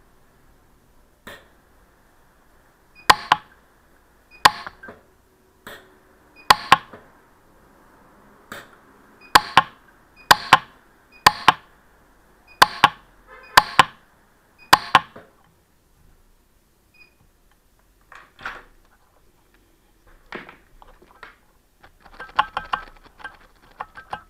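PUK 3S pulse arc micro welder firing single weld pulses onto the claws of an 18ct gold ring to build them up with gold: a series of sharp snaps about one a second for the first half, then fainter, irregular ticks and a quick flurry of ticks near the end.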